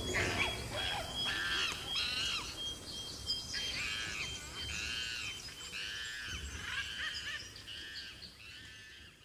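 Wildlife ambience of chirping animal calls, repeating about every two-thirds of a second in the second half and fading out near the end. A steady high whistle runs under the first few seconds.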